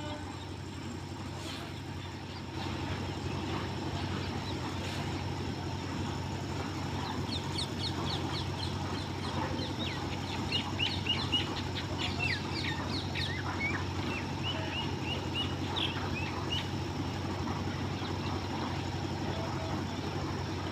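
Small birds chirping in rapid runs of short, high notes over a steady low rumble.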